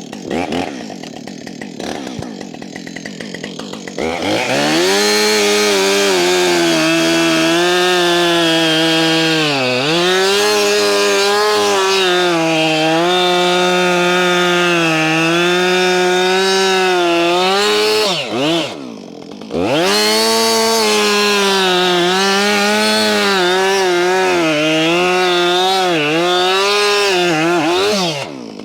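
Husqvarna 562 XP two-stroke chainsaw starting and idling briefly, then run at full throttle cutting through a pine log, its revs sagging now and then under load. It eases off once about two-thirds of the way in, then cuts again before dropping back near the end.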